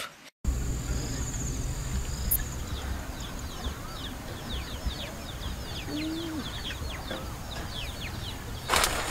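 Outdoor ambience that starts abruptly with many birds calling in quick, short descending chirps, over a steady high-pitched insect whine and a low wind rumble. A brief rustle near the end.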